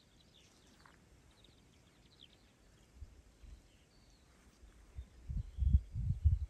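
Faint, short, high bird chirps scattered through the first few seconds. From about five seconds in, wind buffets the microphone in low gusts, and that becomes the loudest sound.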